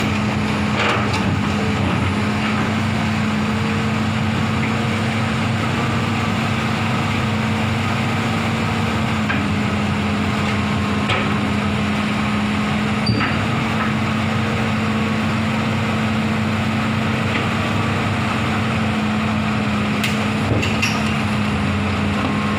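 A large engine running steadily at a constant speed with an even hum, with a few short metallic knocks, one about a second in, one in the middle and a couple near the end.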